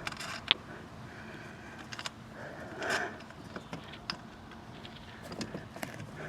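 Scattered light clicks and scrapes of metal bolts and the awning's mounting bracket being handled and fitted onto a roof rack.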